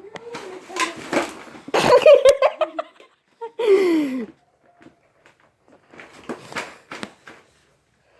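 Laughter and short wordless vocal sounds, including a long falling cry about three and a half seconds in, followed by scattered light rustling and knocks.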